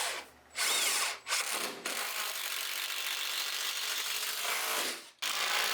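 A power tool running in several bursts, the longest about three seconds.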